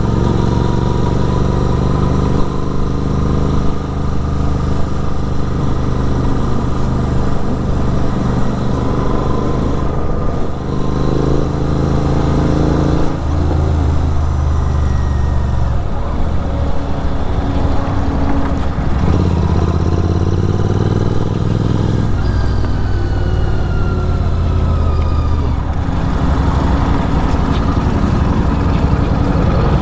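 Superbike engine and exhaust running under way, a steady note that shifts pitch a few times as the throttle and gears change.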